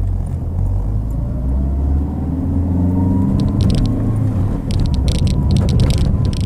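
Chevrolet Celta 1.0's four-cylinder engine pulling under way, heard from inside the cabin over steady road rumble; the engine note rises from about two seconds in. A quick run of short clicks or rattles comes near the end.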